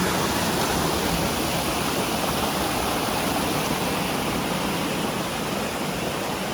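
Steady rush of a creek's water running high after heavy rain.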